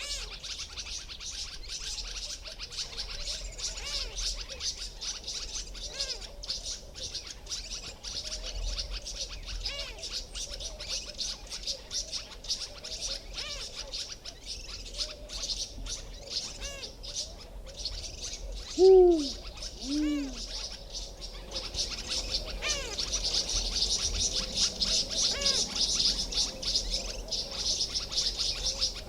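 Garden birds scolding continuously as they mob a Spotted Eagle-owl. About two-thirds of the way through, the owl gives its loud two-note hoot, and afterwards the birds' scolding grows louder.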